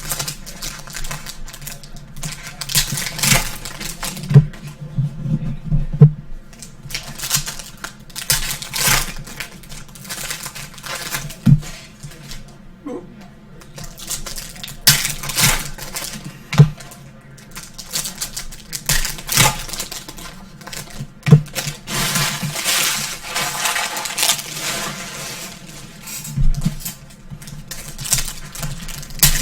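Trading cards and foil pack wrappers being handled: packs torn open and cards flicked and slid against each other, in irregular snaps, clicks and rustles.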